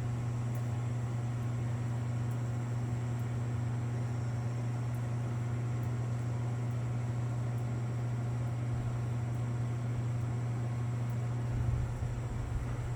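Harbor Breeze Armitage 42-inch ceiling fan running on high speed, giving a steady low buzzing hum with faint light ticks about once a second. The owner puts the buzz down to the missing seal on the light globe.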